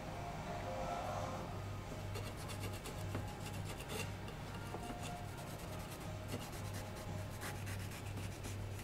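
Chef's knife paring the skin off a strip of eggplant on a wooden cutting board: soft, repeated scraping strokes of the blade through the skin, with small taps of the knife on the board.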